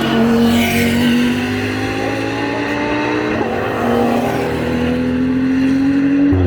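GT3 race car engine accelerating hard, its note climbing steadily through one gear, dropping at an upshift a little past halfway, then climbing again to another upshift at the end.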